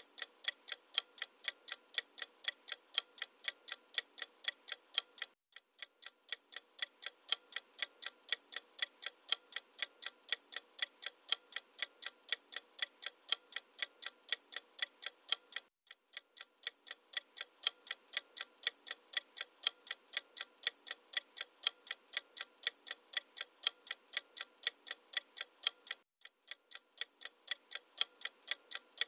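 Clock-ticking sound effect used as a quiz countdown: rapid, perfectly even ticks, several a second, broken by three short gaps about ten seconds apart.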